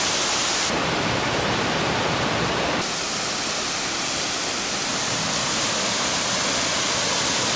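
Waterfall pouring close by: a loud, steady rush of water. Its tone shifts abruptly about a second in and again near three seconds.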